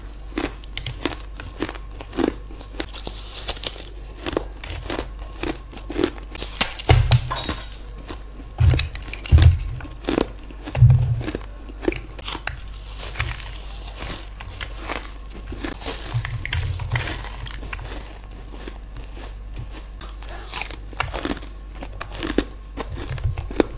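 A person biting into and chewing a frost-covered block of ice, giving many short crisp crunches throughout, with a few heavier low thumps between bites.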